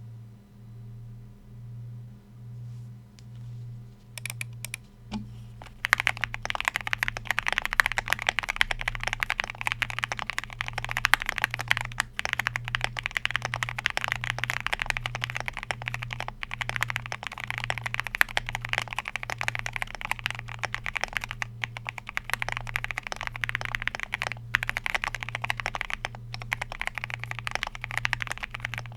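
Typing on a Qwertykeys QK75 mechanical keyboard with lubed ThicThock linear switches, an FR4 plate and PBT keycaps. A few scattered keystrokes come first, then fast continuous typing starts about six seconds in.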